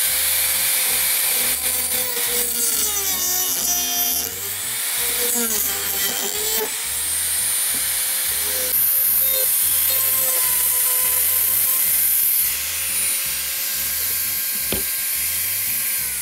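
Mini rotary drill cutting through a speaker's plastic housing: a steady high motor whine with a hissing cut. The pitch dips twice in the first several seconds as the cut loads the motor.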